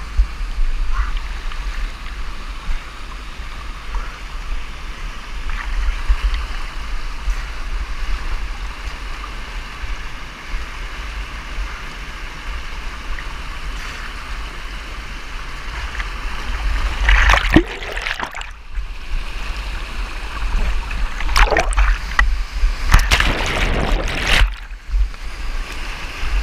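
Whitewater of a river in flood rushing steadily, with a low rumble of water and wind buffeting the microphone. From about two-thirds of the way in, several loud splashes as the kayak is carried through breaking waves.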